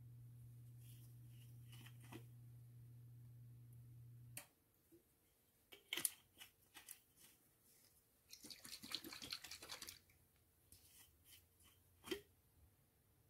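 Faint kitchen handling sounds as olive oil is poured into an empty ceramic frying pan on a glass cooktop: a few light clicks, a brief crackling rustle, and a sharper click near the end. A low steady hum runs for the first four seconds or so and stops with a click.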